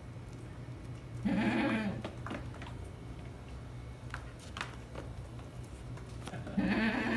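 Ten-day-old Hollandi-breed goat kids bleating: two short bleats about five seconds apart, the second near the end, with a few light clicks between.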